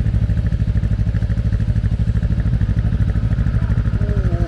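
Motorcycle engine idling steadily, with an even, rapid pulsing.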